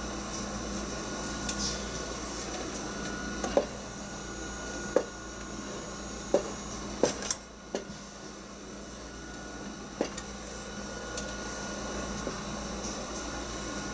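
Wooden spoon stirring thick strawberry-rhubarb jam in a stainless steel pot as it heats toward a slow boil, with several sharp, irregular knocks of the spoon against the pot, mostly in the middle stretch, over a steady background hum.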